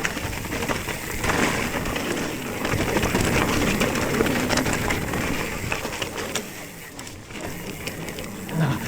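Specialized Stumpjumper mountain bike riding a dirt singletrack: tyres rolling over the dirt with a steady rush, and the bike rattling and clicking over bumps, the noise rising and falling with the terrain.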